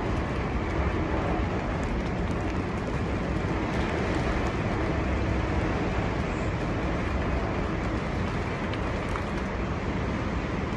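Storm-force wind blowing steadily, a dense low rumble of air with a few faint ticks over it.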